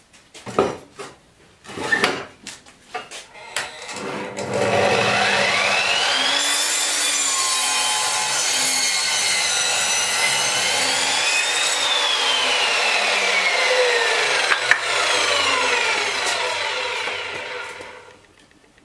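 A few clicks and knocks, then the 2000 W motor of a Parkside sliding mitre saw starts about four seconds in, its whine rising as the blade spins up, and the blade cuts through wood. Later the whine falls away and the sound dies out near the end.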